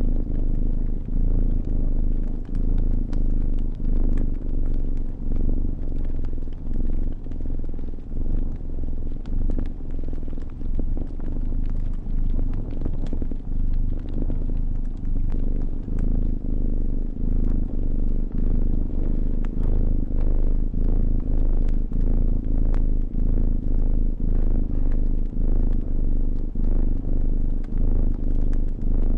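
A domestic cat purring loud and close, a low purr that swells and fades with each breath about once a second. Light crackles and pops of a burning fire run through it.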